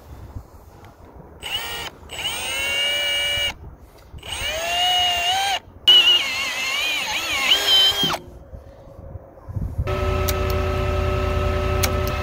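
A handheld drill with a hollow cutter drills out the lead connector posts on an industrial lead-acid battery cell. It runs in four bursts of whine, each rising in pitch as it spins up and wavering as it bites into the lead. Near the end a steady engine hum with a low rumble takes over.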